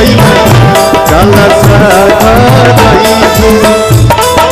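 Live band playing an instrumental passage of a Bhojpuri devotional song: a melody over a steady, driving hand-drum beat, loud throughout.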